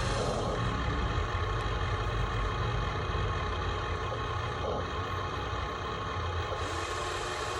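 Engine idling steadily, a continuous low rumble with many steady whining tones over it.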